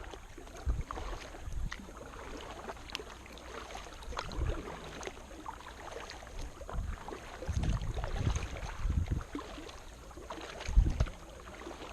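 Kayak paddle strokes in the water: irregular splashes and drips, with several low thumps, the loudest one near the end.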